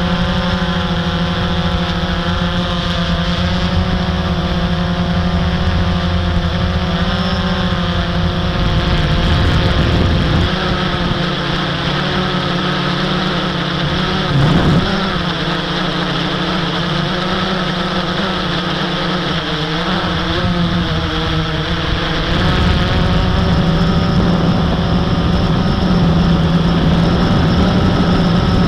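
Blade 350 QX quadcopter's four brushless motors and propellers whining in flight, several tones drifting up and down in pitch together as it manoeuvres, with a brief rise in loudness about halfway through.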